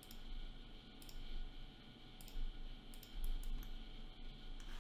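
Computer mouse clicking: a few separate clicks, then a quicker run of clicks in the second half, over a faint steady low hum.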